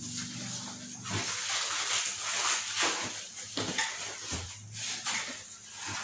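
A corrugated cardboard shipping box being torn apart by hand: repeated ripping and crumpling of cardboard, beginning about a second in.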